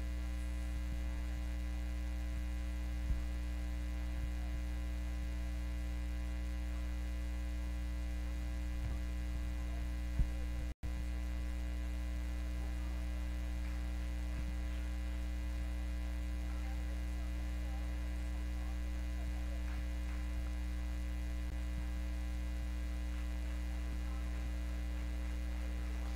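Steady electrical mains hum from the sound system, a low buzz with evenly spaced overtones and a few faint clicks; the audio cuts out for an instant about eleven seconds in.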